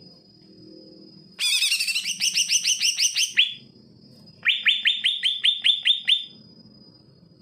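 Male cucak ijo (green leafbird) singing two loud bursts of rapid, evenly repeated sweeping notes, about seven or eight a second, the second burst starting about a second after the first ends.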